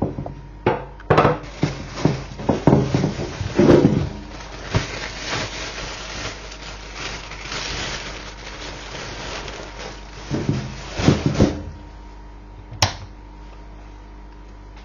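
Kitchen handling sounds: a run of knocks and clatters, a stretch of rustling, more knocks, and one sharp click near the end.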